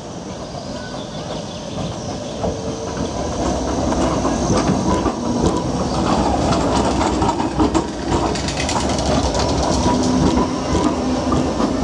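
A modern low-floor electric tram approaching and passing close by, its running gear getting louder from about two seconds in. Its wheels clatter and click over the rails while the drive gives off a steady electric hum.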